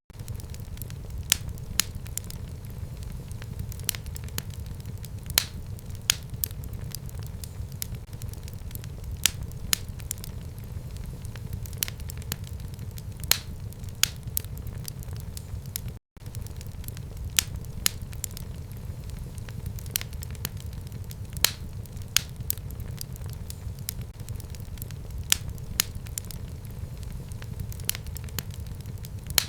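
Wood fire burning in a home fireplace: a steady low rumble of flames with irregular sharp crackles and pops. There is a split-second dropout about halfway through.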